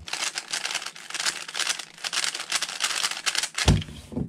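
Gan 12 Maglev 3x3 speedcube being turned very fast during a speedsolve: a dense, rapid run of plastic clacks and clicks. Near the end the turning stops and there is a single low thump.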